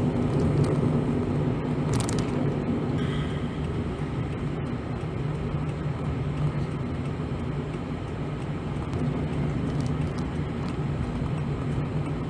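A Toyota van with a CVT driving at a steady pace: an even low engine hum over tyre and road noise.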